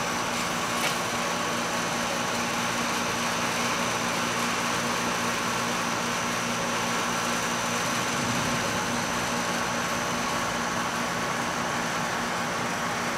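A steady low machine hum with a few held tones under an even hiss, unchanging in level.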